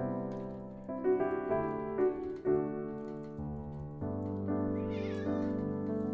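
Background music with piano-like notes, and a short high-pitched whine from a Shiba Inu about five seconds in.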